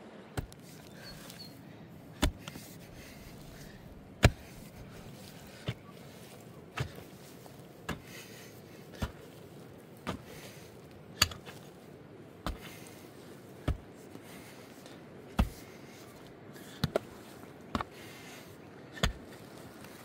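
A pickaxe striking hard, stony earth over and over, a sharp blow about every second.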